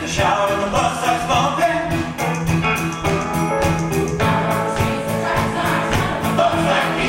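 Music: a song with singing voices over instruments with a steady beat.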